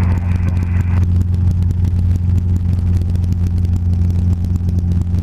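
Robinson R22 helicopter's piston engine and main rotor heard from inside the cabin: a loud, steady low drone while the helicopter hover-taxis.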